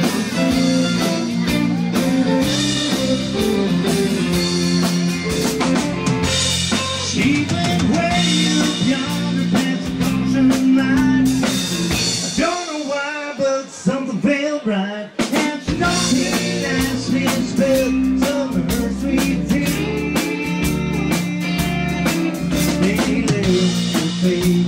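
Live country band playing an instrumental break on electric guitar, fiddle and drum kit. About halfway through, the bass and drums drop out for a few seconds, leaving a wavering high melody, then the full band comes back in.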